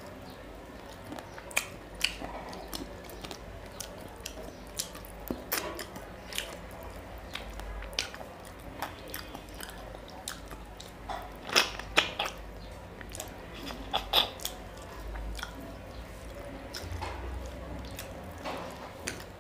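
Close-up chewing and biting of fish curry and rice eaten by hand: many short, wet mouth clicks and smacks, with a few louder ones a little past the middle.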